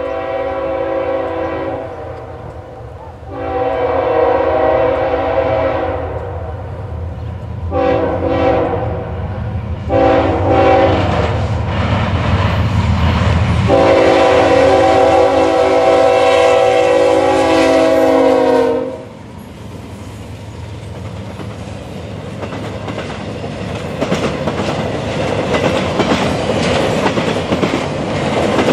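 CSX GE ES44AH locomotive's Nathan K5HLL five-chime air horn blowing five blasts, the last held about five seconds, over the heavy rumble of the approaching locomotives. After the horn stops, the train's cars roll past with wheel clatter that grows louder near the end.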